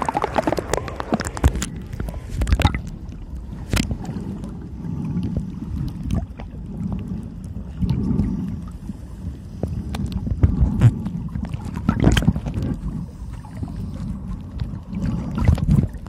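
Sea water sloshing and gurgling around a camera held at the surface and then under water, a muffled low rumble broken by scattered sharp knocks.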